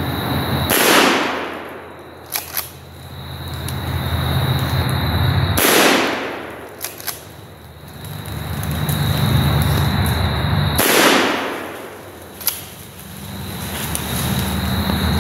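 Three 12-gauge shotgun blasts from a Benelli Nova pump-action shotgun, about five seconds apart, each ringing out through the woods. A second or so after each shot comes the quick double clack of the pump action being worked to chamber the next shell.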